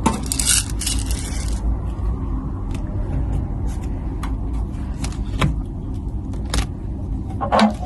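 Plastic parts of a humidifier being handled, with scattered clicks and knocks over a steady low rumble in the background. A short hiss comes about half a second in.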